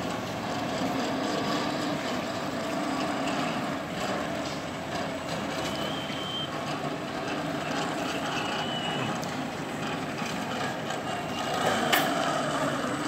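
Marina overhead travel crane running with a steady mechanical drone as it carries a hoisted jet ski across the quay, with a sharp knock near the end.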